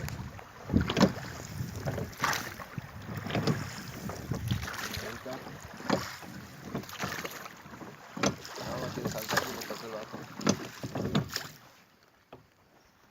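Irregular knocks and clatter of gear being handled in a small fishing boat on the river. Wind rumbles on the microphone for the first few seconds, and it goes nearly quiet near the end.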